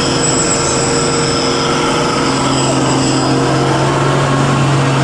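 Heavy diesel truck engine, from a fuel tanker truck on a steep hairpin climb, running steadily under load: a loud, constant low drone that rises a little in pitch partway through.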